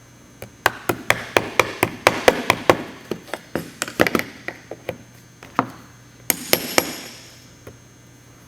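Light hammer taps on a stainless steel accelerator pedal cover, seating it fully onto the pedal: a quick run of sharp metallic taps, about four a second, for some five seconds, then three more after a short pause.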